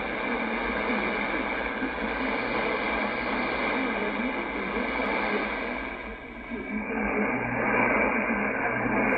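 Shortwave AM reception from a Yaesu FTdx10 transceiver tuned to 15160 kHz: a weak broadcast voice buried in steady hiss and static, too weak to make out the language. A little after six seconds in, the sound dips briefly and then comes back duller, its higher hiss cut away.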